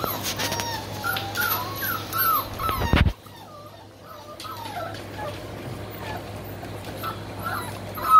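Dogo Argentino puppies whining and yelping, short high squeals rising and falling again and again. A loud rustling noise runs under them for the first three seconds and cuts off suddenly, and a louder squeal comes at the very end.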